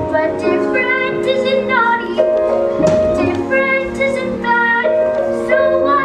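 A boy singing a solo song over musical accompaniment, holding long notes.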